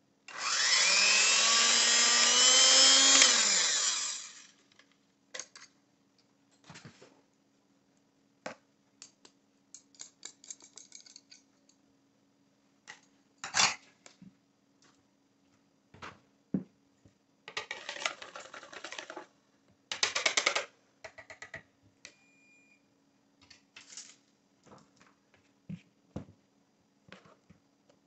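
Electric hand mixer whipping egg whites into stiff meringue, its motor running with a pitch that rises and then falls for about four seconds before it is switched off. After that come scattered clicks, knocks and a couple of short scrapes from the bowl and utensils.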